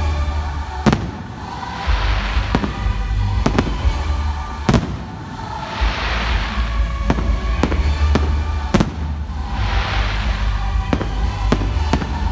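Aerial firework shells bursting in the sky: three loud sharp bangs about four seconds apart, with lighter reports in between, and a second or so of crackle after each big burst.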